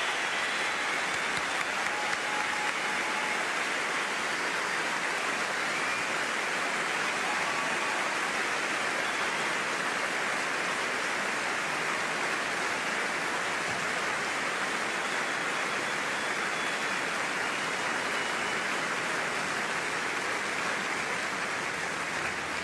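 Large audience applauding, a steady, unbroken ovation that eases slightly near the end.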